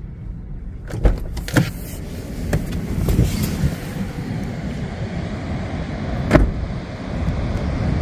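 Honda Element's driver door unlatched and opened with a couple of sharp clicks about a second in, followed by steady wind and surf noise. About six seconds in the door shuts with a single solid knock.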